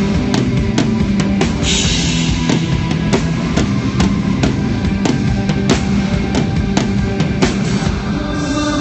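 Live rock band playing: a drum kit keeps a steady beat under sustained bass and guitar notes, with a cymbal crash about two seconds in.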